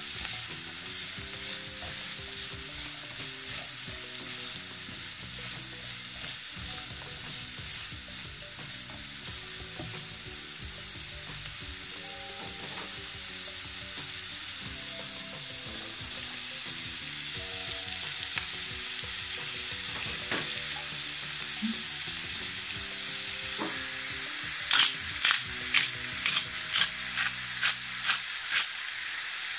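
Diced carrot and red onion sizzling in oil in a nonstick frying pan while being stirred with a silicone spatula: a steady frying hiss. Near the end comes a quick run of about ten sharp, loud hits, roughly three a second.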